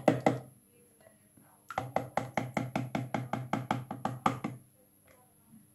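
A carton of coconut milk is being shaken upside down over a pot to empty out the last of it, making rapid, even knocks at about six a second. One short run ends about half a second in, and a longer run lasts from about two seconds in to past four seconds.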